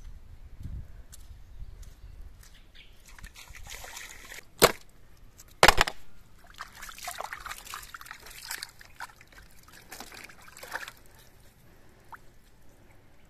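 Hands splashing and sloshing water in a shallow stream, in irregular bursts. Two sharp knocks about a second apart near the middle are the loudest sounds.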